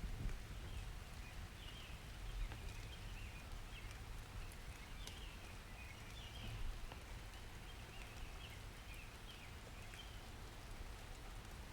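Summer rainstorm ambience: light rain with scattered drops over a low, steady rumble of distant thunder, with faint high chirping calls recurring throughout.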